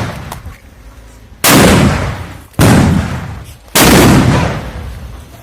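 Firecrackers going off: three loud bangs a little over a second apart, each trailing off over about a second.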